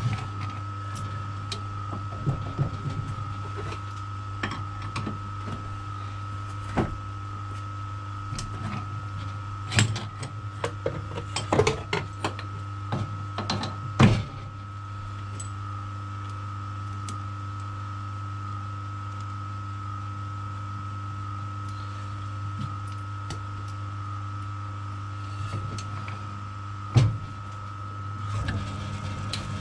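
Small metal lathe running with a steady hum and a high, even whine, while metal tools clink and clank now and then as the centre drill in the tailstock chuck is swapped for a twist drill. The clanks come in a cluster about ten to fourteen seconds in, with one more near the end.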